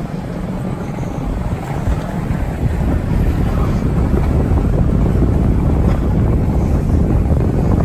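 Skateboard wheels rolling over a rough concrete floor: a steady low rumble that grows louder over the first few seconds, with wind buffeting the microphone.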